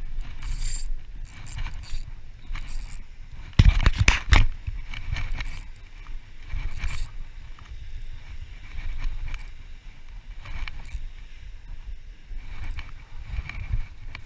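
Clothing and fishing gear rustling and scraping against a chest-worn action camera over a steady low wind rumble on the microphone, with a louder burst of scraping about four seconds in.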